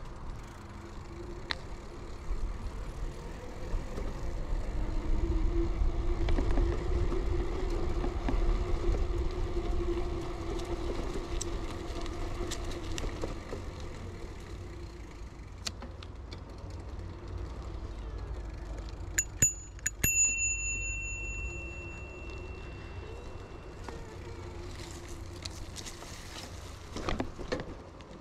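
Ride on an early-1990s Bianchi Alante mountain bike: steady tyre noise and wind rumble on the microphone, swelling for several seconds early on, with scattered mechanical clicks. About twenty seconds in, a cluster of clicks is followed by a brief high ringing tone.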